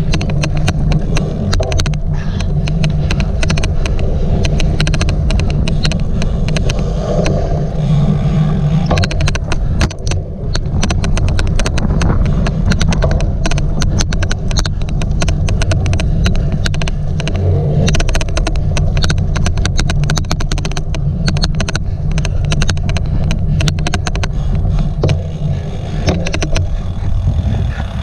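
Loud, rapid, irregular clicking from a cyclocross bike being raced, over a steady low rumble of riding noise.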